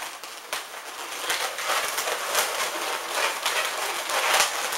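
Latex modelling balloons rubbing against each other and against the hands as they are twisted, a continuous scratchy rubbing broken by many irregular crackles.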